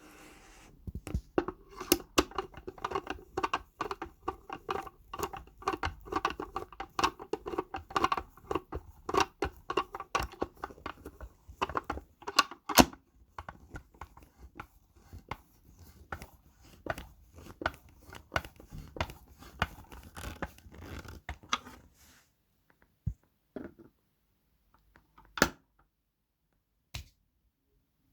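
A Phillips screwdriver drives a screw into the Sony speaker's housing: scratchy, creaking turns full of quick clicks for about twenty seconds. After that come a few separate clicks and knocks with quiet in between.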